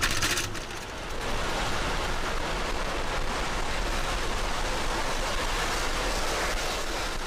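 Falcon 9 first stage's nine Merlin engines thundering during ascent, heard from a distance: a steady, rushing noise like heavy rain over a deep rumble.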